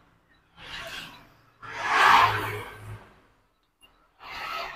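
Rubber power cord of a mini grinder being untangled and handled: three soft rustling bursts, the middle one loudest.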